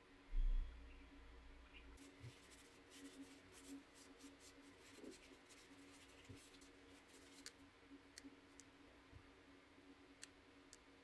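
A dull thump about half a second in, then faint scratchy rustling and small clicks as a cloth rubs over the steel hammer head, over a low steady hum.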